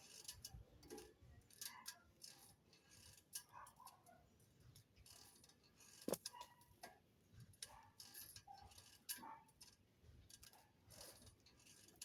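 Near silence, broken by faint, irregular clicks and light taps, with a slightly sharper click about six seconds in.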